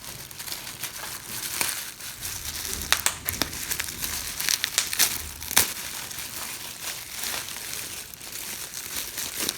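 Packaging wrap crinkling and crackling as it is unwrapped by hand from a 3D-printed figure piece, an irregular run of crackles with a few sharper snaps.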